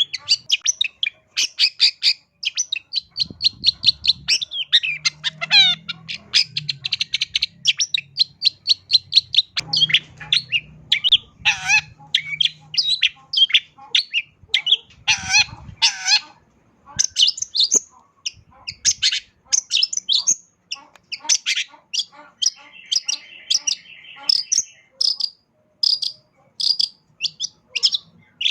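Long-tailed shrike singing a fast, varied song of rapid chirps, trills and sweeping notes, full of phrases mimicked from other birds.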